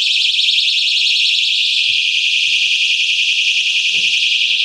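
Fire alarm sounding a continuous shrill, high-pitched tone with a fast flutter.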